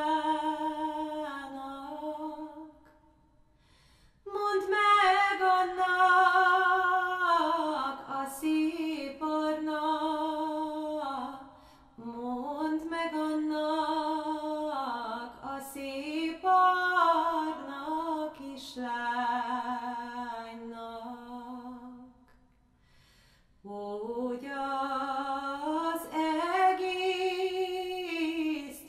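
Background music from the film's score: a solo singing voice carries a slow melody of long held notes with vibrato, with no clear accompaniment. It breaks off twice for a short pause.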